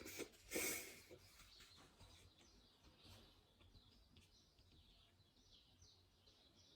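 Near silence with faint birds chirping on and off. About half a second in comes one short breathy noise from the person, the loudest sound here.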